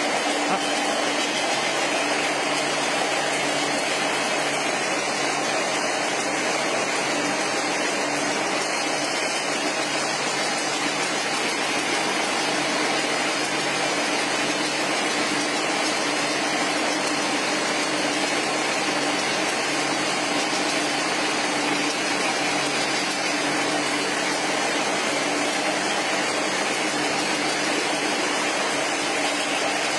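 Aerosol tin can vacuum leak tester running: a steady machine hum with a few constant tones over a continuous hiss.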